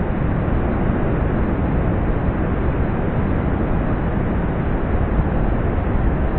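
Steady, loud rushing roar of heavy hurricane surf breaking along the shore, heaviest in the low end.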